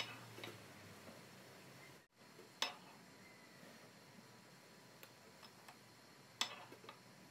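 Plastic measuring spoon clicking against a ceramic bowl while scooping beaten egg: a few light, separate taps, the clearest about two and a half seconds in and again near the end.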